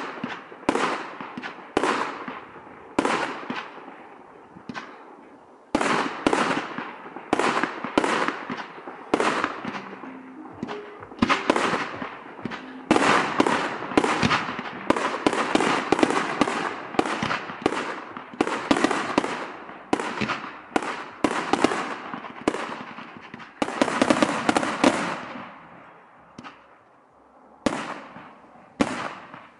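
Aerial fireworks shots firing in rapid succession: a long string of sharp bangs, each trailing off in a short echo, most tightly packed in the middle, with a brief lull near the end.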